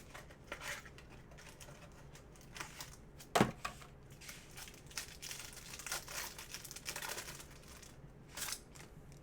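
Plastic wrapping of a trading-card pack crinkling and tearing as it is opened, with light handling clicks and rustles, and one sharp snap about three and a half seconds in.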